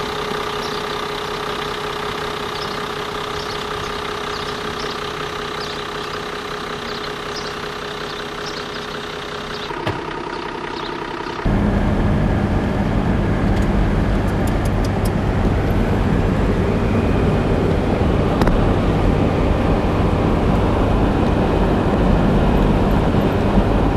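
A car's engine idling steadily. About eleven seconds in, it changes to a car driving at road speed, with louder steady road and wind noise inside the cabin.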